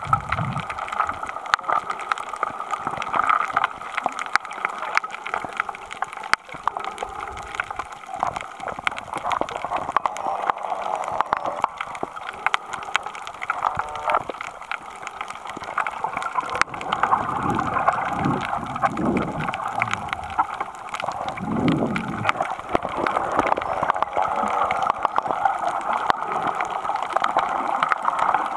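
Underwater sound picked up by a submerged camera over a coral reef: a steady gurgling wash of water with a constant crackle of fine clicks. Several low gurgling swells come in the later part.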